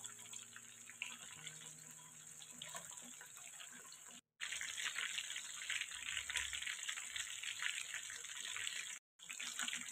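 Chicken pieces deep-frying in hot oil in a kadhai: a steady sizzle with fine crackling. It gets louder about four seconds in and cuts out briefly twice.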